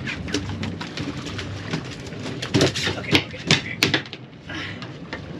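Irregular knocks and slaps, loudest in a cluster about halfway through, as a hooked billfish is hauled out of the water and aboard a sailboat.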